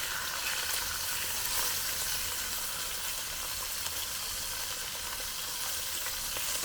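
Chicken pieces frying in hot bacon grease and rendered chicken-skin fat in a cast iron skillet: a steady sizzle as the chicken browns.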